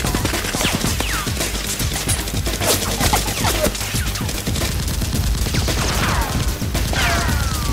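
Rapid gunfire: a steady fusillade of shots in quick succession, with several falling whistles like bullets whizzing past, the clearest near the end.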